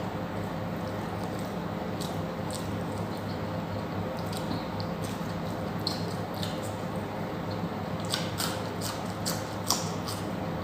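Mouth sounds of a person eating: wet chewing and lip smacks, with a bunch of sharper smacks about eight seconds in, over a steady low hum.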